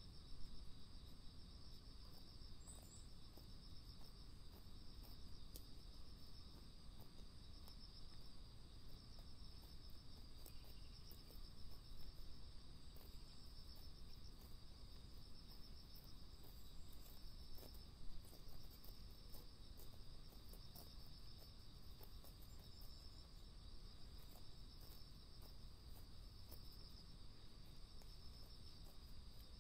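Faint, steady chorus of chirping insects, with a low outdoor rumble and a few soft scattered ticks.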